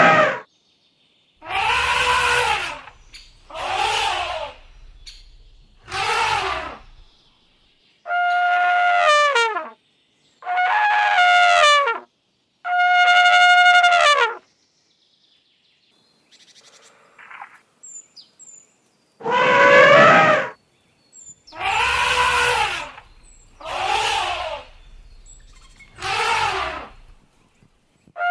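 Elephant trumpeting: a series of loud calls about a second long, roughly two seconds apart, some rising and falling in pitch and others held at one pitch. There is a pause of a few seconds about halfway through.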